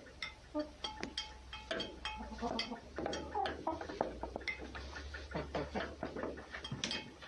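A red fox moving about close beside a cat: irregular light tapping and scuffling, with a few short squeaky animal calls and a steady low hum underneath.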